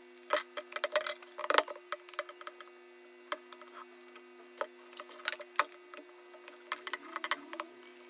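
Screwdriver unscrewing the screws of a hair dryer's plastic housing, with the plastic body being handled: irregular clicks, taps and light scrapes, busiest in the first couple of seconds.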